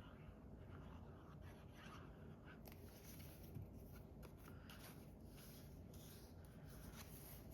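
Faint handling of paper and card: soft rustling and scraping, with a scatter of small clicks and taps from about three seconds in.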